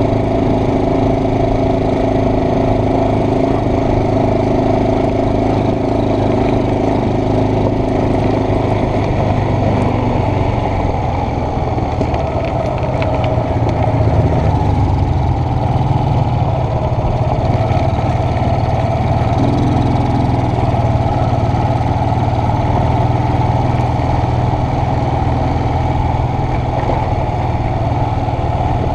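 ATV engine running steadily while riding along a dirt trail, its note shifting partway through.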